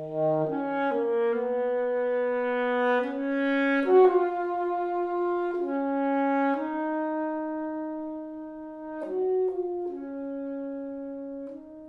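Solo saxophone playing a slow, unaccompanied melodic phrase of sustained notes, changing pitch every second or two, with a few quicker notes about nine seconds in, and the phrase ends right at the close.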